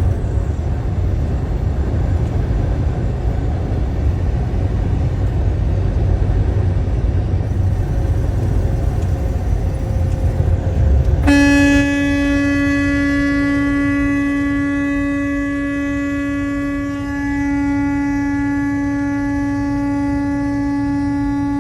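Steady road rumble of a moving vehicle on the highway, then about eleven seconds in a vehicle horn is sounded and held down continuously on one steady note for about ten seconds.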